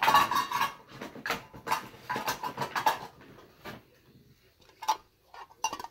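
Empty product packaging being handled and set down: a quick run of clicks and rustles for about four seconds, then a couple of single knocks near the end.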